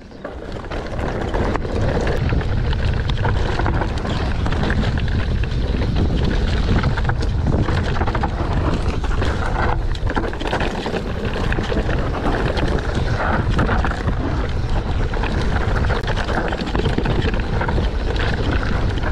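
Wind rushing over an action camera's microphone while riding an enduro mountain bike downhill, with tyre noise on the rocky trail and frequent small knocks and rattles from the bike.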